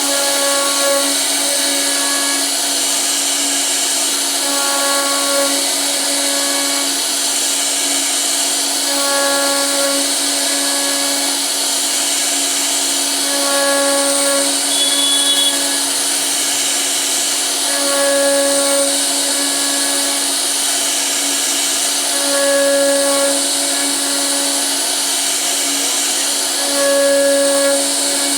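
CNC router spindle running steadily with a constant whine while carving a wooden door panel. A set of higher tones comes and goes in a regular cycle about every four and a half seconds as the bit moves back and forth through the cut.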